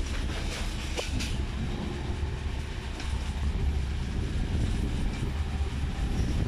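Passenger train running along the track, heard from an open carriage window: a steady low rumble from the wheels on the rails, with a couple of clicks as the wheels cross rail joints.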